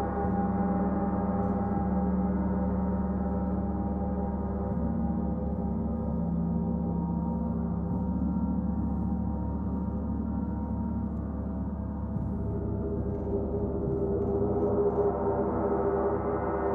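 Large hanging gongs sounding together in a continuous, dense wash of many overlapping tones over a low hum, kept going by soft mallet strokes rather than sharp strikes. The mix of tones shifts about five seconds in and swells slightly near the end.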